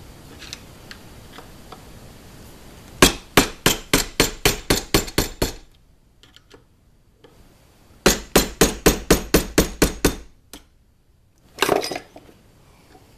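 Hammer tapping a punch to peen the plunger tube tight into an Essex 1911 pistol frame held in a vise: two runs of about ten quick metal taps, roughly four a second, with a pause of a couple of seconds between them. A brief knock follows near the end.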